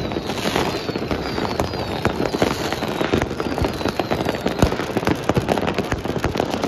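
Many fireworks and firecrackers going off at once: a dense, unbroken crackle of bangs and pops, with a few faint falling whistles in the first couple of seconds and one louder bang a little past halfway.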